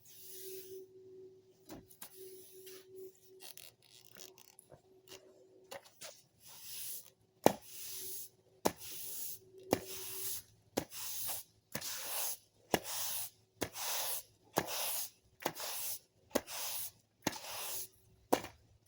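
Broom sweeping a floor: a run of short scratchy swishes, each often starting with a sharp tap of the broom head, coming about once a second from about seven seconds in.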